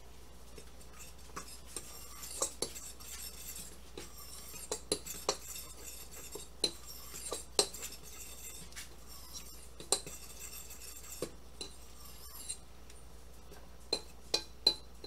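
Metal fork stirring dry flour, sugar, salt and baking powder in a mixing bowl: irregular light clinks and scrapes of the tines against the bowl, with a quick run of three clinks near the end.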